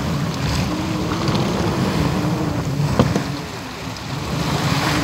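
Steady low rumble of wind and sea on a fishing boat's deck. About three seconds in comes one sharp knock from the cooking pots being handled.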